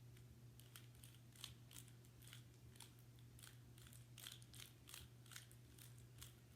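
Faint, quick, irregular clicks of a GAN 356 Air speed cube's layers being turned during a timed solve, over a low steady hum.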